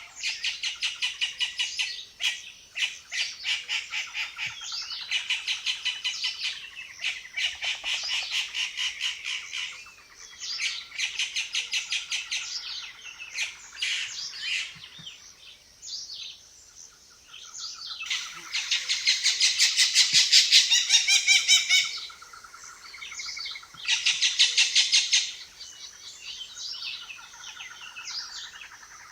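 Jungle birds calling in fast chattering runs of short repeated notes, several overlapping. The loudest run of chatter comes about two-thirds of the way through, with another short loud burst soon after.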